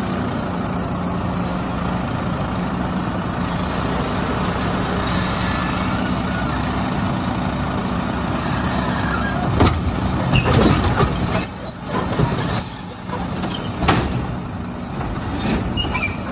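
Side-loading garbage truck's diesel engine running steadily, then from about ten seconds in a series of sharp clanks and bangs from the truck's loading equipment, with a few brief high squeals.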